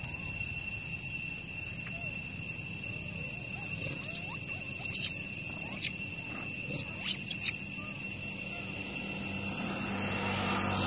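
Steady high insect drone under a handful of short, sharp squeaks from young long-tailed macaques, the loudest about five and seven seconds in. A motorbike goes past near the end.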